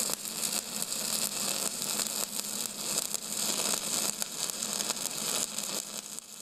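Steady, loud hiss like static or white noise, with light crackle and a faint low hum underneath.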